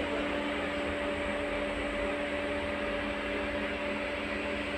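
Steady electrical hum with a few fixed tones and a low rumble inside the passenger cabin of an LVS-86 tram, from the tram's onboard equipment, with no rail clatter.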